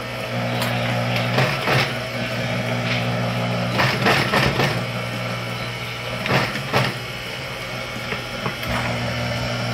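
Industrial sewing machine running: its motor hums steadily while a handful of short clattering bursts come as it stitches the panel.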